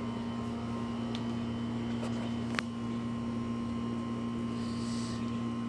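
Steady low electrical hum with a single sharp click about two and a half seconds in.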